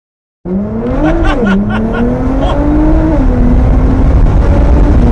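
Nissan GT-R R35's twin-turbo V6 with a titanium exhaust, heard from inside the cabin under full-throttle acceleration. It cuts in suddenly, climbs in pitch, drops as it shifts up about a second and a half in, with a few sharp crackles around that shift, climbs again, and shifts once more about three seconds in before running on steadily.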